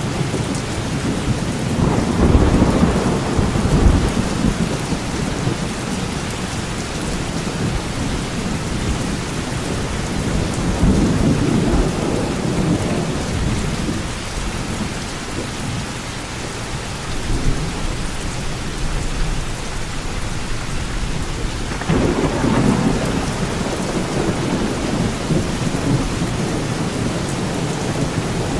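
Thunderstorm: heavy rain falling steadily, with low rumbles of thunder a couple of seconds in, again about eleven seconds in, and again about twenty-two seconds in.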